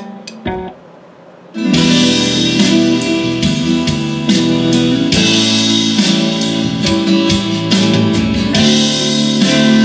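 Guitar music played from a USB thumb drive through a 1960–63 Chevrolet truck radio converted to Aurora Design stereo. After a held note fades and a short gap, a new guitar track starts loudly about a second and a half in.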